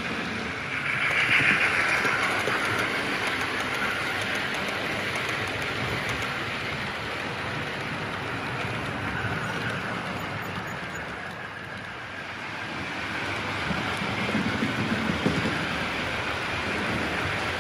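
OO gauge model trains running on the layout's track: a steady rumble and hiss of wheels and motors that swells about a second in and again near the end.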